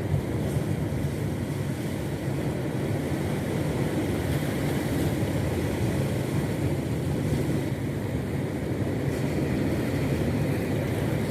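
A boat's engine running steadily at speed.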